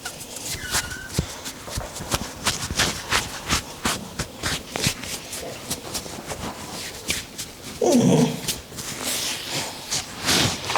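Hands patting and slapping on an oiled head during a head massage: irregular sharp pats, several a second. About eight seconds in comes a louder, lower sound lasting under a second.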